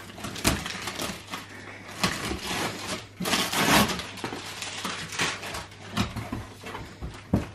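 Cardboard shipping box being opened by hand: its plastic packing strap is worked off and the flaps pulled open. Scattered knocks and scrapes of cardboard, with a longer rasping rush about three seconds in.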